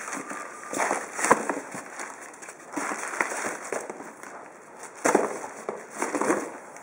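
Plastic wrap crinkling and cardboard rustling in several irregular bursts as a plastic-wrapped pump is packed back into its cardboard shipping box.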